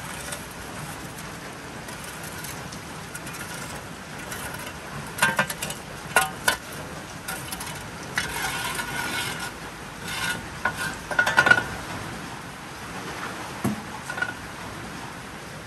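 Kitchen utensils clinking and scraping against dishes, with sharp ringing clinks about five seconds in and again about eleven seconds in, over a steady hiss of rain.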